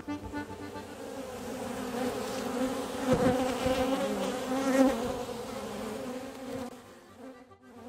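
Honey bees buzzing en masse, a wavering hum that swells to its loudest in the middle and fades away near the end.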